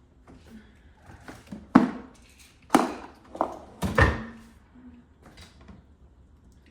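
Supplement bottles and their caps being handled: a few sharp knocks and clicks, the loudest about two, three and four seconds in.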